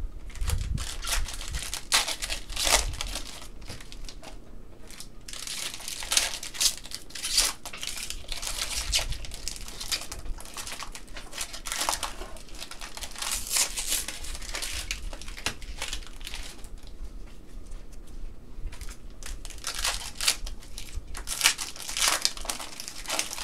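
Trading-card pack wrappers crinkling and cards being handled: an irregular rustling with sharper crackles scattered throughout.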